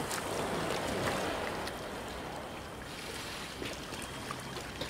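Lifeboat's diesel engines running steadily with a low hum, under a rush of wind on the microphone and a few faint knocks.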